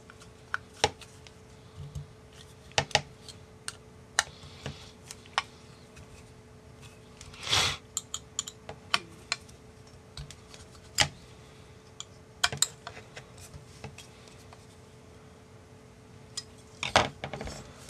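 Hex screwdriver tightening screws into a carbon-fibre quadcopter frame: irregular sharp clicks and taps of the driver and the frame plates being handled, with a brief burst of noise about halfway through and a quick flurry of clicks near the end.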